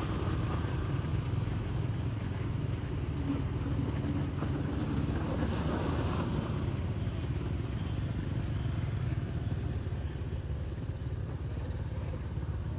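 Street traffic of motorbikes and cars running past, a steady rumble.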